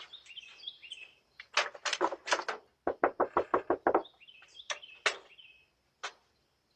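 Someone pounding on a front door, picked up by a doorbell camera's microphone: four heavy knocks, then a rapid run of about ten, then a few single knocks.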